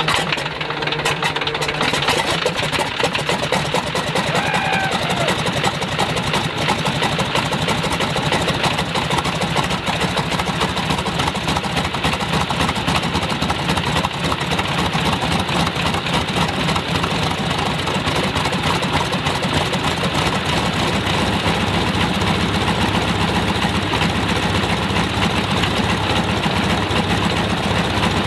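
Stinson L-1's Lycoming R-680 nine-cylinder radial engine running steadily at idle just after starting. It runs cleanly now that the distributor drives have been reset 180 degrees to match the timing at the front of the engine.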